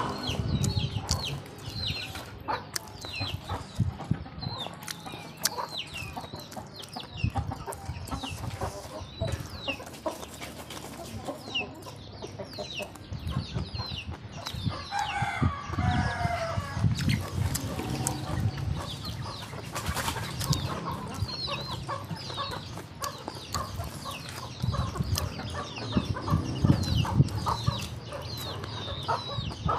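Chickens clucking close by, with short high peeps throughout and a longer call about fifteen seconds in, over close-up chewing and mouth sounds.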